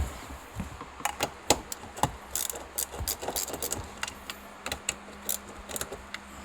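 Irregular clicks and knocks of hands working on the Jeep's center console, handling plastic trim and cables while routing wiring through it.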